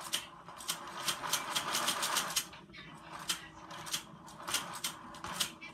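Toy fishing game running: rapid, irregular plastic clicking, several clicks a second, over a faint steady motor hum.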